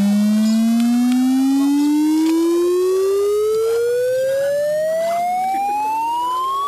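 A single smooth electronic tone gliding steadily upward in pitch, like a siren winding up, with a few faint ticks underneath.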